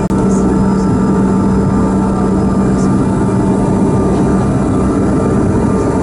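Airliner engines running steadily, heard inside the passenger cabin as a loud, even drone with a few held tones.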